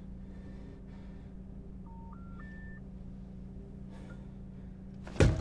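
Car engine idling with a steady low hum. About two seconds in, three short rising telephone tones, each a step higher than the last, the pattern of a phone network's error signal. A sudden loud knock comes just before the end.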